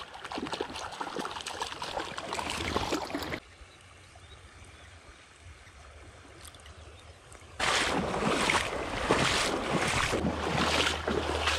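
Creek water rushing and splashing, with wind buffeting the microphone. About three and a half seconds in it drops to a softer, quieter flow for about four seconds, then the louder water and wind noise returns.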